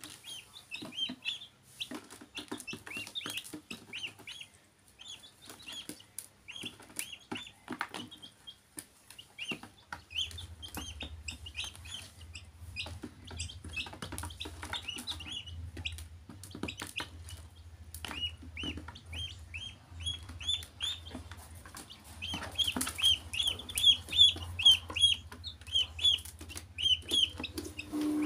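Baby chicks and a duckling peeping, a steady stream of short high calls that grows louder and quicker near the end, mixed with sharp clicks of feet and beaks on the plastic tub. A low hum comes in about ten seconds in.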